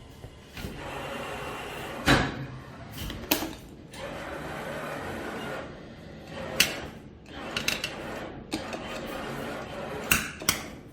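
Claw machine in play: the gantry motors run in stretches, broken by several sharp clunks and knocks of the claw mechanism, the loudest about two seconds in and again near the end.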